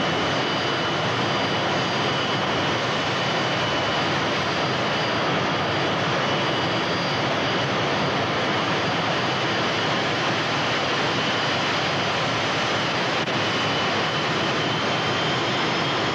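Pair of MiG-21 jet engines on the Big Wind fire-fighting machine running steadily at high power, with water injected into the exhaust: a continuous, even jet rush with a faint steady high whine, the blast used to blow out an oil-well fire.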